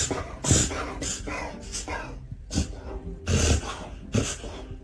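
A dog making short, noisy breathy sounds, repeated roughly once a second.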